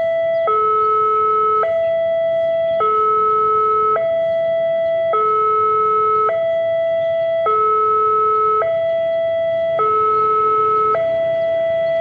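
Railway level-crossing warning siren sounding a two-tone alarm, switching back and forth between a lower and a higher tone about once a second without pause. The alarm signals that a train is approaching the crossing.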